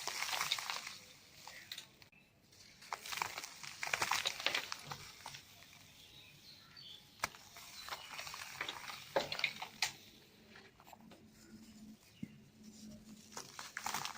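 Dry cement balls and cubes crumbling, a gritty crackle that comes in several bursts with short, quieter pauses between.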